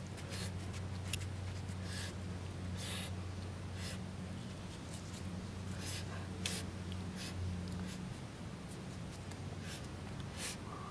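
A small knife slicing through crisp star fruit, making short scratchy cuts about once a second, then a crunchy bite into a piece near the end. A low steady hum runs underneath and stops about three-quarters of the way through.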